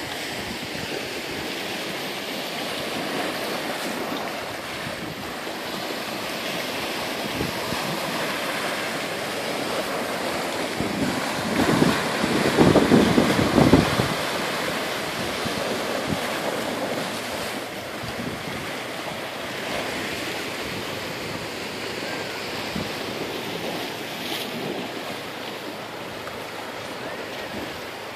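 Small sea waves breaking and washing onto a sandy beach in a steady rush, with wind buffeting the microphone. The rush swells louder for a few seconds about halfway through.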